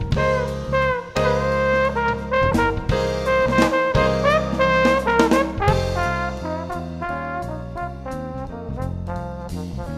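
Jazz music led by brass horns, with bass and drums keeping a steady beat.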